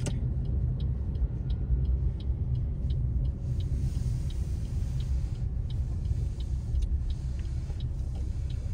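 Inside a car's cabin: a steady low engine and road rumble, with the indicator relay ticking evenly about three times a second, signalling a left turn at a mini roundabout.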